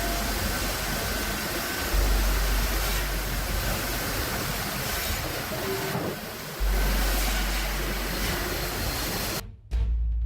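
Steady, loud machinery noise with a deep low hum that swells in every few seconds; it breaks off abruptly near the end.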